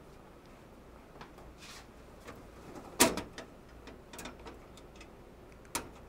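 Scattered clicks and knocks from hands working at a fire alarm panel cabinet, the loudest a sharp click about halfway through and another near the end.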